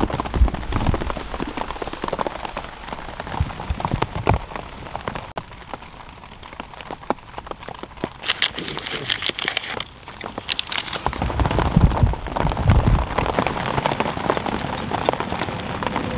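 Rain pattering on the canvas of a lavvu tent, heard from inside: a dense, irregular patter of drops with now and then a heavier drop landing as a louder tap.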